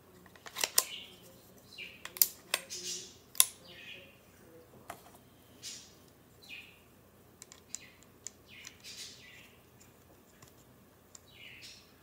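Metal-on-metal handling of an aluminium pistol mock-up built on a Gevarm open-bolt .22 action. There are sharp clicks of the bolt and trigger parts, loudest and most frequent in the first few seconds, with short scraping rasps of metal sliding between them.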